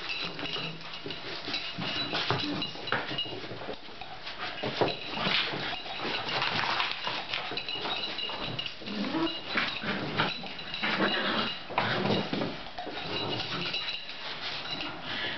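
A Staffordshire bull terrier and a boxer puppy play fighting: scuffling and scrabbling paws on a rug, with short dog growls and grunts mixed in.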